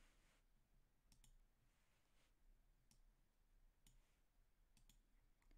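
Near silence: room tone with a few faint computer-mouse clicks, spread through the pause.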